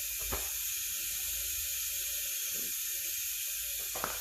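Compressed air hissing steadily through a leak-down tester plugged into a cylinder of a 5.7L Vortec V8, with a couple of faint clicks. The gauge reads in the green, so the cylinder is holding air with low leakage.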